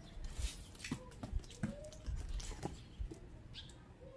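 Dogs giving a few short, high whines that rise and fall, eager for treats, with scattered clicks and knocks.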